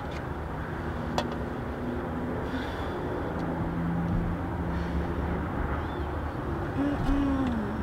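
Steady hum of a car heard from inside the cabin, its engine and ventilation running, with a single sharp click about a second in.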